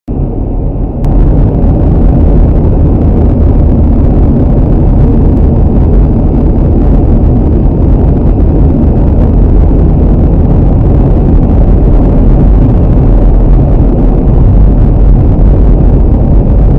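Steady rumble of a car's tyres and engine at highway speed, about 80 to 90 km/h, heard inside the cabin. It is loud and low, and fills out slightly about a second in.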